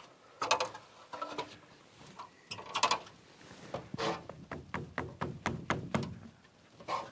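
A run of knocks and clunks from hands-on work with building materials, ending in a quick string of about eight sharp clicks a little past the middle.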